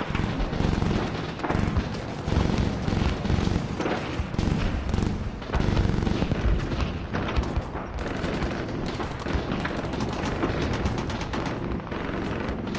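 Dense, continuous automatic gunfire: several rifles firing rapidly at once as a battle sound effect.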